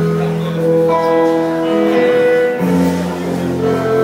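Live concert music recorded from the audience: slow instrumental notes held and changing chord about every second or two, with no clear singing.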